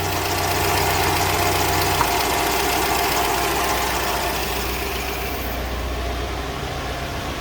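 UMZ-4216 inline-four petrol engine idling steadily under its closed valve cover, running on a newly fitted rocker shaft that now gets its oil feed. The low engine note steps down about two seconds in.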